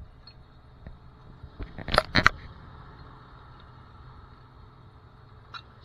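A quick cluster of sharp clanks about two seconds in, as a snatch block and its steel wire rope are handled and rigged at the back of a tow truck, over a low steady hum.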